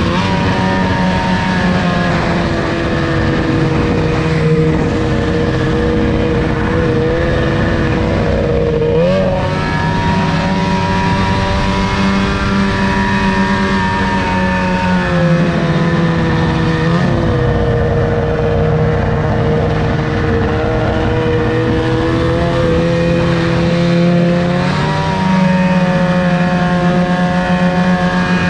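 Snowmobile engine running under throttle on a trail ride, holding a steady pitch, then dipping and picking back up several times as the throttle eases off and opens again.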